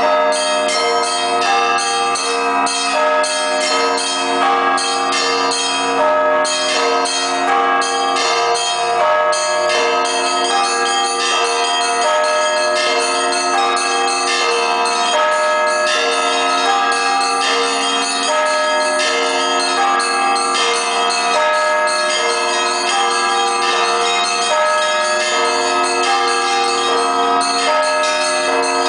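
Orthodox church bells rung in a continuous peal: rapid, many-voiced strikes of the smaller bells over the steady ringing of the lower bells.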